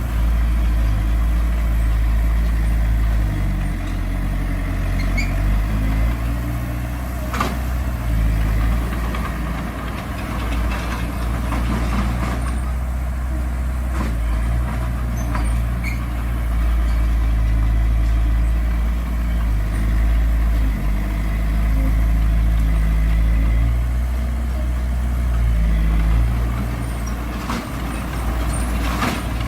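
Heavy diesel earthmoving machinery running under varying load, the engine note stepping up and down, with a few sharp knocks along the way.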